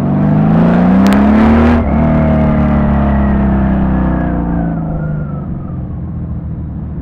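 Honda Valkyrie's flat-six engine through Cobra six-into-six exhaust pipes, accelerating with the pitch climbing, then dropping sharply about two seconds in at a gear change. It then pulls steadily before easing off and fading somewhat near the end.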